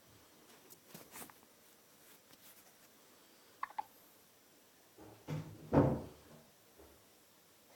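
A newborn baby's single short, squeaky hiccup about three and a half seconds in. About two seconds later comes a louder, dull thump.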